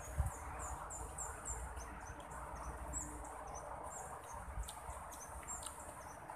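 Outdoor ambience with short, high chirps from a small creature, about three a second at first, then scattered, over a faint low rumble.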